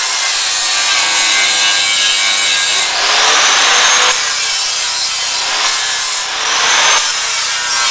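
DeWalt angle grinder with its disc grinding into steel square tubing: a steady harsh grinding hiss over a high motor whine. The disc bites harder for about a second about three seconds in, and eases off briefly about six seconds in.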